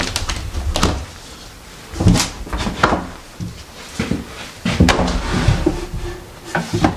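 Painted wooden built-in cupboard doors being pulled open and swung, with a string of knocks and clicks from the doors and their catches.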